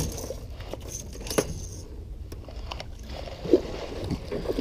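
A few sharp knocks and light rattles of gear in a small metal jon boat as the landing net is handled over the side, over a steady low rumble.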